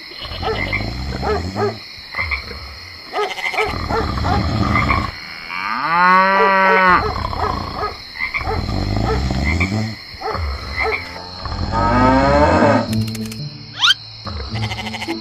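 A run of animal calls: repeated low croaks, a long cow-like moo about six seconds in, and a second falling call around twelve seconds, with a quick rising whistle near the end.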